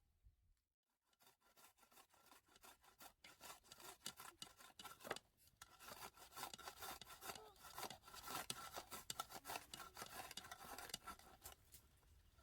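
Rapid, uneven rasping strokes, starting about a second in and stopping near the end.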